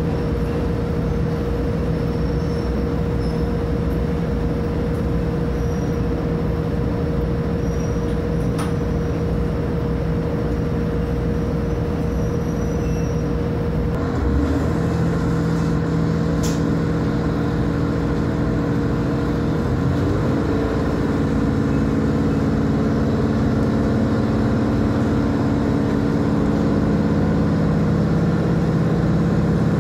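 JR Hokkaido H100 diesel-electric railcar heard from on board: the diesel engine runs at a steady idle with a constant hum. About halfway through it throttles up as the train pulls away, and the engine and motor tones rise in pitch a few seconds later.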